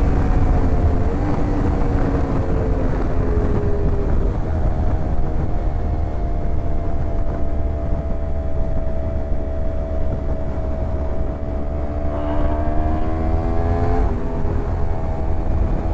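Yamaha R1 sport bike engine under way: the pitch drops over the first few seconds as the bike slows, holds steady while cruising, then climbs and steps down with a gear change near the end. Heavy wind rumble runs underneath.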